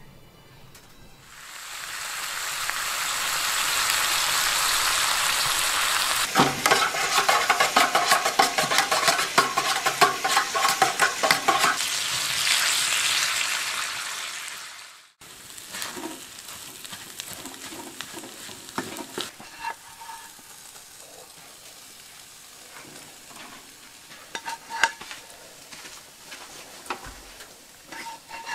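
Bacon frying in a skillet, a loud steady sizzle with a spatula scraping and stirring it for several seconds. About halfway through the sizzle cuts off suddenly, leaving only quieter scattered clinks and scrapes of a pan and spatula as food is served.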